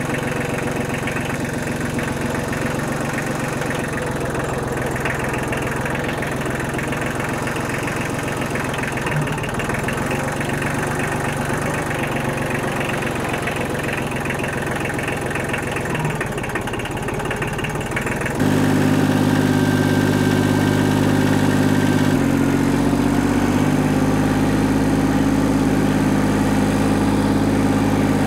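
Kubota L2350 compact tractor's diesel engine running steadily. About two-thirds of the way through it suddenly gets louder and its pitch shifts.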